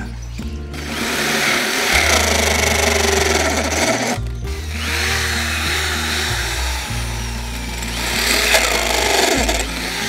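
Corded electric drill with a round hole-cutting bit boring into the wall of a bamboo tube. The motor and the grinding of the bit against the bamboo run in two stretches, with a short stop about four seconds in. Background music plays throughout.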